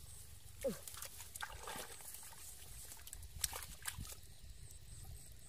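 Hands digging and squelching in wet mud, with a series of sharp wet clicks and slaps. About half a second in, one short sound glides steeply down in pitch.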